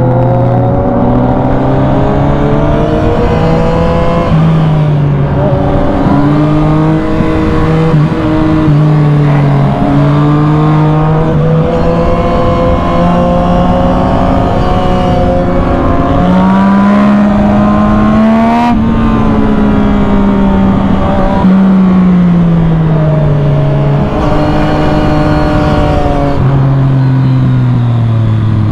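Yamaha MT-09 SP's inline three-cylinder engine through an Arrow full exhaust system, heard from on board while riding. The engine pitch steps up and down repeatedly as the throttle opens and closes, and slides down twice in the second half as the bike slows.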